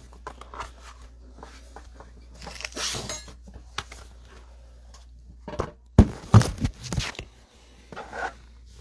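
Objects being handled and moved about on a table: scattered clicks, rustles and knocks, the loudest few about six to seven seconds in, over a steady low hum.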